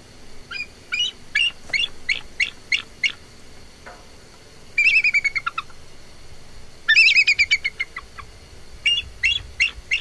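Bald eagle calling: a string of thin, high piping notes, then two rapid chattering runs of notes falling in pitch, about five and seven seconds in, and a few more piping notes near the end.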